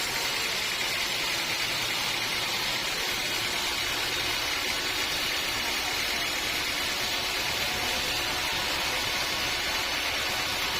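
Sawmill machinery running steadily, an even, unbroken noise with no pauses.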